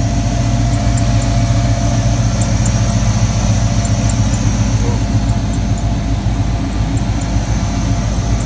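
GMC pickup truck's engine idling steadily: a low drone with a thin, steady whine above it.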